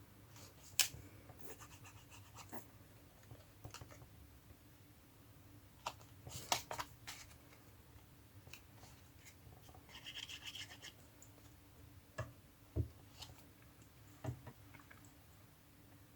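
Quiet paper-crafting handling: scattered taps and clicks of paper and tools set down on the desk, with a short scratchy rubbing of paper about ten seconds in.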